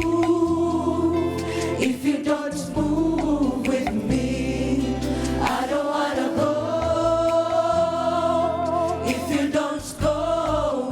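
Gospel worship song: a choir of voices singing together over held low bass notes from an accompanying band.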